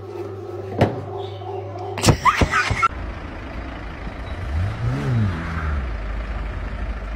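Steady hum of a bread machine with one click, then a burst of knocks and clatter, then city street traffic: vehicle engines running and passing, one rising and falling in pitch about five seconds in.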